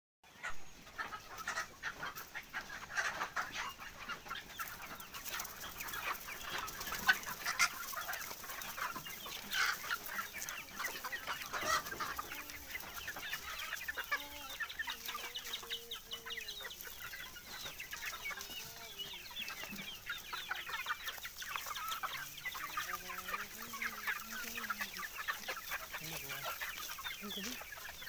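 A flock of chickens clucking, with many short overlapping calls throughout and some lower drawn-out clucks in the second half.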